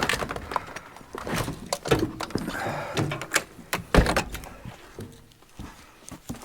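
A car door being opened and shut as a person climbs out: a run of clicks and thunks, the loudest thump about four seconds in.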